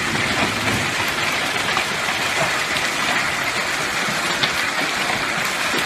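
Quarter- to half-dollar-size hail and heavy rain pelting down in a steady dense hiss, with scattered sharp clicks of individual hailstones striking.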